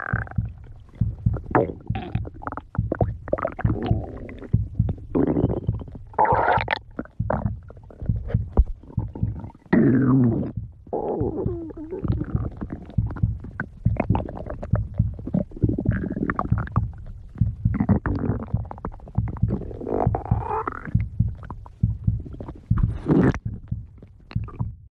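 A person's stomach growling and gurgling, the rumbling of an empty, hungry stomach. It goes in an irregular run of short gurgles and crackles, with several longer rising and falling growls.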